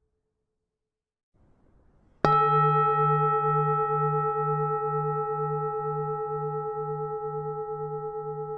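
Buddhist temple bell struck once, about two seconds in, then ringing on with several clear tones and a slow fade, its low hum pulsing about twice a second.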